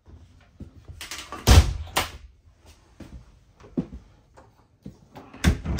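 Framed glass shower door of an RV shower being swung shut: a few sharp knocks and a rattle from about one to two seconds in, the loudest about one and a half seconds in, then another knock near the end.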